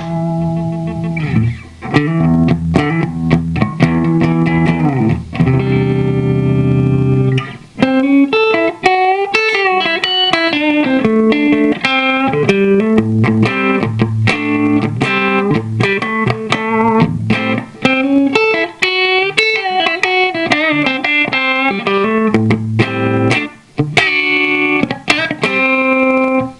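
Electric guitar played through a compressor pedal: a run of picked single notes and chords, with a long sustained chord about six seconds in, ending abruptly.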